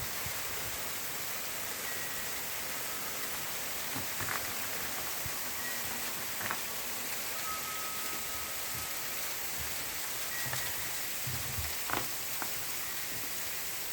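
Freezing rain falling in an ice storm: a steady fine hiss of drops hitting and icing on the ground, with a few faint ticks.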